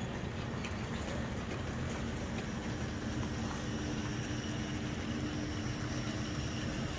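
Two Hornby OO-gauge GWR Class 2721 pannier tank model locomotives double-heading a goods train along model railway track: a steady rumble of wheels on rail, with a low motor hum that comes in about two and a half seconds in as they pass close and fades near the end.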